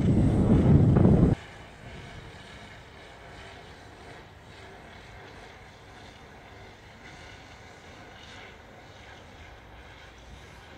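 Loud wind buffeting the microphone that cuts off abruptly about a second and a half in, followed by a faint steady hiss with a few faint ticks.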